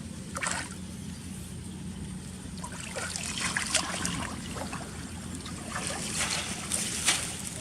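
Water splashing and trickling in short irregular bursts, more often in the second half, over a steady low hum.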